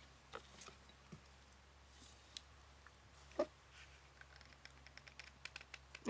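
Faint, scattered clicks and taps of small craft materials being handled on a cutting mat, with one sharper tap about three and a half seconds in and a run of light ticks near the end.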